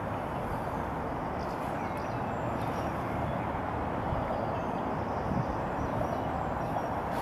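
Steady outdoor background noise: a constant rush with a low rumble, unchanging throughout, with a few faint high chirps.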